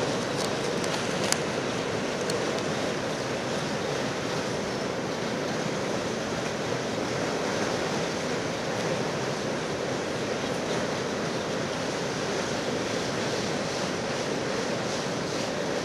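Steady rolling noise of a coal train's cars crossing a steel railroad bridge, mixed with wind on the microphone, with a few faint clicks in the first seconds.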